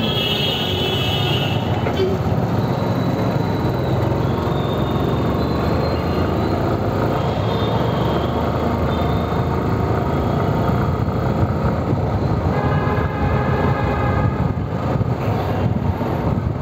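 Motorcycle engine running under way, with wind rushing over the rider's microphone in a steady loud rumble. Vehicle horns sound briefly near the start and again about two-thirds of the way through.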